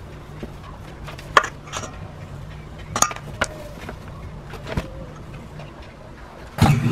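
A few scattered clinks and knocks of metal kitchenware: a stainless steel mesh sieve and bowl being handled while ingredients go into the flour.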